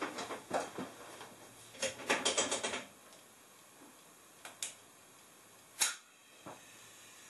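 Light clicks and taps: a quick run of them about two seconds in, then a few single clicks spaced out.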